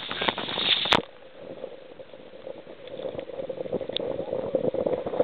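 Water gurgling and splashing along a small sailboat's hull as it moves under sail. A loud rush of wind on the microphone fills the first second, then cuts off suddenly with a click.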